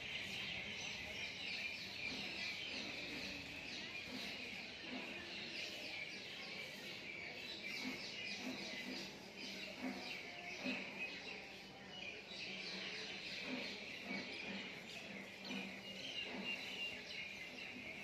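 A dense chorus of many birds chirping continuously, a steady mass of overlapping high twitters.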